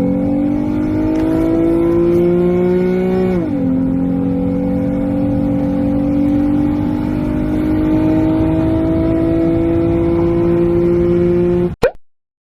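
Car engine accelerating at full throttle: its pitch climbs, drops sharply about three and a half seconds in as it shifts up a gear, then climbs slowly again. It cuts off abruptly near the end.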